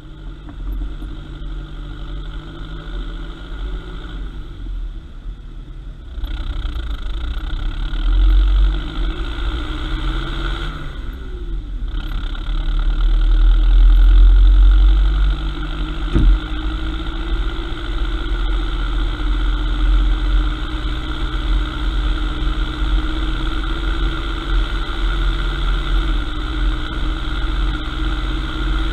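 An engine running continuously with a deep rumble, getting louder about six seconds in and loudest a little past halfway.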